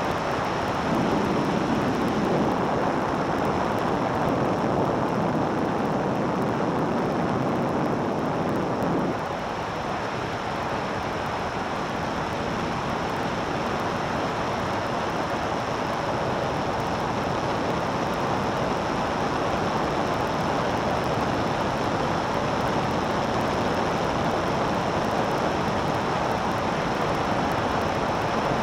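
Steady rush of airflow and engine noise in the open cockpit of a light aircraft in flight, buffeting the microphone. The low rumble eases slightly about nine seconds in.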